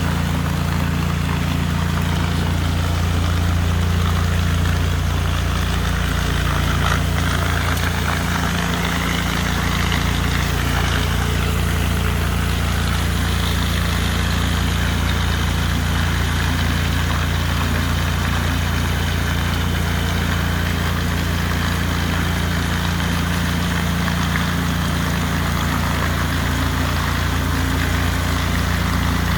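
High-pressure washer running steadily under load, feeding a DCM-WR460 rotary floor surface cleaner whose spinning spray jets hiss against the floor; a faint whine wavers up and down in pitch about a third of the way in.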